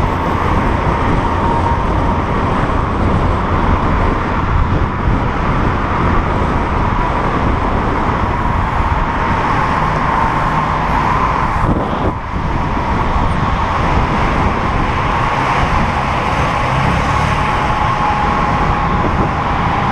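Road traffic and wind rush on the microphone of a bicycle-mounted action camera riding among moving cars, with a steady thin whistle-like tone running through it. Dense and loud throughout, with a brief dip about two-thirds of the way in.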